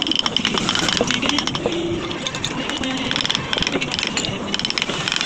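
Wood-carving chisel driven into a wooden relief panel by a mallet in a rapid, uneven series of light taps.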